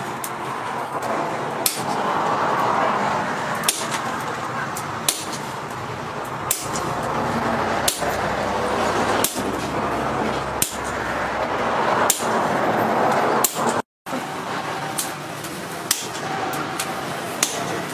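Hand hammer forging a red-hot knife blade on a post anvil: sharp blows about every one and a half seconds over a steady background noise. The sound cuts out for a moment about fourteen seconds in.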